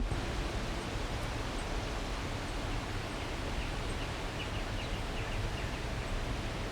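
Outdoor nature ambience: a steady rushing noise with a deep rumble, like wind or rushing water, cutting in abruptly. About four to five seconds in, a bird gives a quick series of short chirps.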